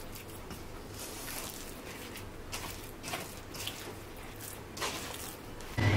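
Spatula stirring and pressing wet purple sticky-rice flour dough in a stainless steel bowl: irregular wet squishing and scraping strokes.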